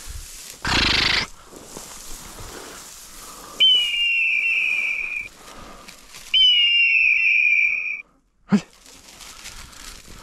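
Two long, steady blasts on a dog whistle, each about a second and a half with a quick upward flick at the start, blown to signal the pointing dog working the field. A short rush of noise comes about a second in, before the blasts.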